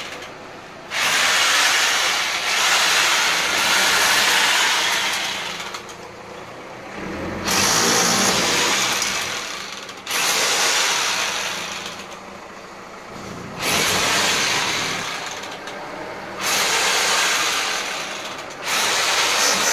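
A power tool on masonry, running in repeated bursts of a few seconds, each starting abruptly and tailing off, as the wall around a glass door frame is broken out to widen the doorway.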